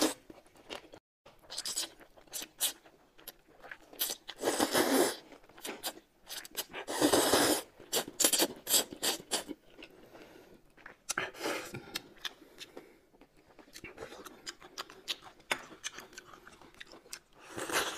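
Close-miked eating sounds: noodles slurped in two longer noisy pulls about four and seven seconds in, between many small chewing and mouth clicks.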